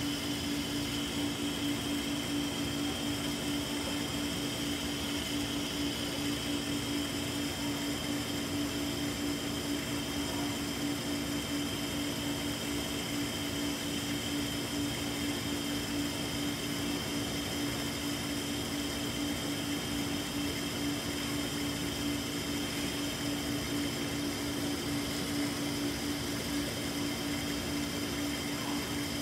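Aquarium tanks heard up close: a steady hum from the tank pumps and filters over a constant even hiss, unchanging throughout.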